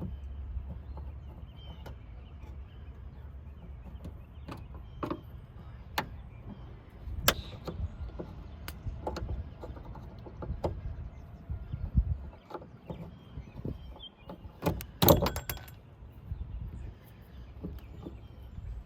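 Scattered clicks, taps and knocks of hand work prying an old trunk-lid gas strut off its mounts on a 2003 Buick Regal, with a quick run of louder knocks about 15 seconds in.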